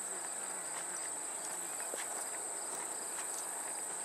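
Steady high-pitched drone of insects calling in the surrounding fields, with a few faint footsteps on the pavement.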